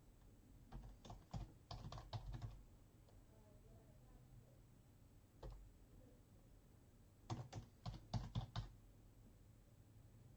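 Typing on a computer keyboard: two short bursts of keystrokes, a few seconds apart, with a single key press between them.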